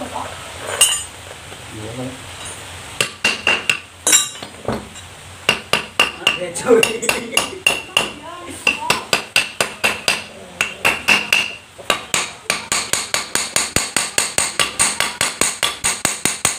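Hammer striking the end of a soybean grinder's steel motor shaft to knock the worn ball bearing off. The strikes ring like metal. They start a few seconds in as separate blows, and from about twelve seconds in become a quick, steady run of taps.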